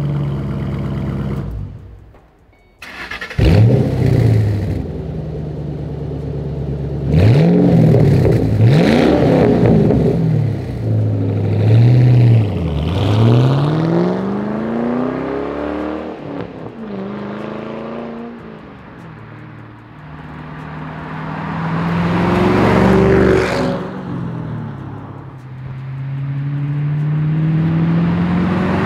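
Ford Mustang GT's 4.6-litre three-valve V8 through a stainless-steel muffler-delete axle-back exhaust. It idles steadily at first. After a brief gap it accelerates hard, the pitch climbing and dropping repeatedly with each rev and gear change. It then fades as the car drives off, and grows louder again with more revving as it comes back.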